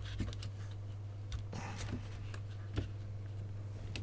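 Faint clicks and rustles of hands handling cables and plastic parts inside an opened soundbar, over a steady low hum.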